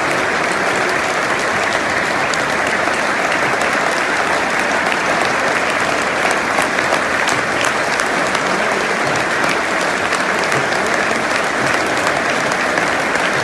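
Large stadium crowd applauding, thousands clapping together in a steady, unbroken wash of sound.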